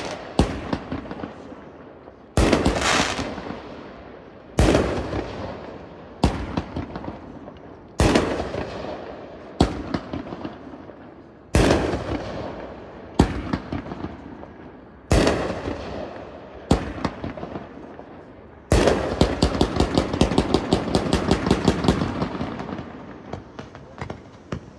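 A 500-gram consumer fireworks cake, Battle of Lexington, fires about ten single shots, one every second and a half to two seconds. Each is a sharp bang trailing into a crackling hiss. About 19 seconds in it breaks into a rapid string of pops for several seconds, which dies away near the end.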